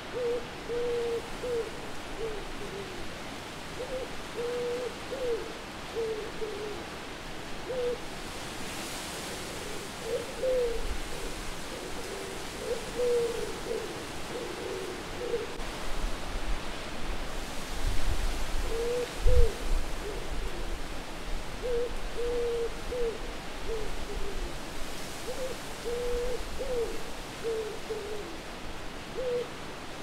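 An owl hooting again and again in short clusters of notes over a steady wind. A low gust rumbles up past the middle.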